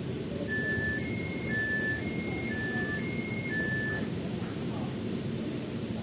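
Metro train running with a steady rumble, while an electronic two-tone chime alternates low and high, seven notes of about half a second each, from about half a second in until about four seconds in.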